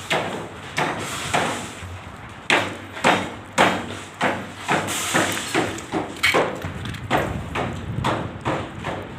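A series of irregular knocks and thuds, about two a second, some with a short ringing tail, typical of hammering and banging on building work.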